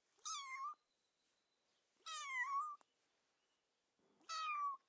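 Cat meowing: three short, high meows about two seconds apart, each under a second long.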